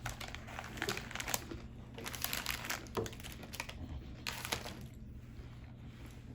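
Plastic snack packaging crinkling as it is handled, in several spells of rustling.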